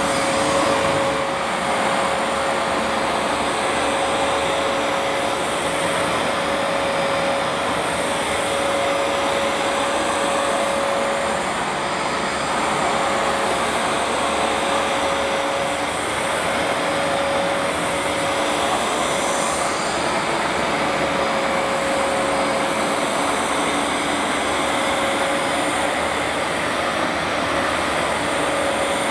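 Vax Platinum Power Max carpet washer running as it cleans a carpet: a steady rushing motor and suction noise with a steady mid-pitched whine.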